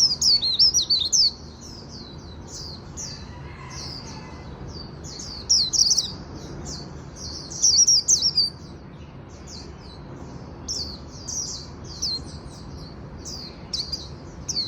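White-eye (vành khuyên) singing a fast, high-pitched twittering song, with no pauses and louder stretches at the start, around the middle and a little after.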